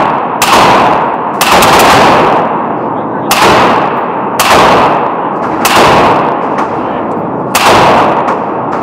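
Suppressed Faxon ARAK-21 XRS rifle in 7.62×39 fired six times at a slow, uneven pace, roughly a second or two apart. Each shot is followed by a long fading echo.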